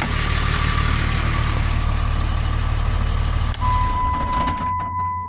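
2006 Ram 3500 pickup engine idling, then switched off about two-thirds of the way in with a click and running down to a stop. A steady electronic warning beep from the truck starts at the moment it is shut off.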